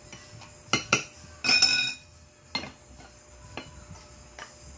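Dishes and utensils clinking while food is dished out: a ladle and spoon knocking against a metal pot and a ceramic bowl. Two sharp knocks come just under a second in, then a louder ringing scrape lasting about half a second, then a few lighter clinks.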